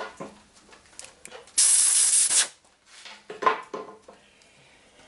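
A loud, even hiss of a pressurised spray or gas jet, lasting just under a second, about one and a half seconds in, with light handling rustles and knocks around it.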